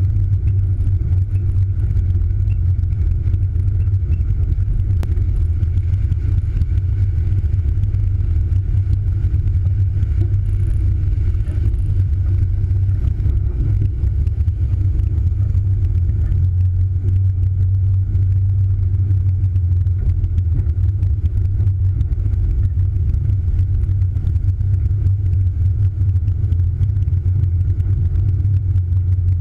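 A vehicle's engine running at a steady low drone, with tyre and road noise, while it drives along a gravel track.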